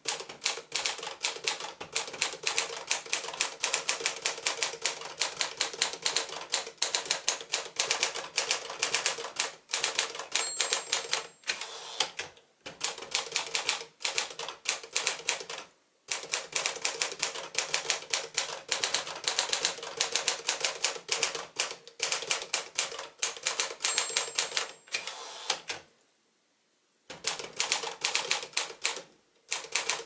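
Rapid typing on a 1950s Smith-Corona 5-Series portable typewriter (Sears Tower Quiet-Tabulator): a steady clatter of typebar strikes with a few short pauses. The margin bell rings twice.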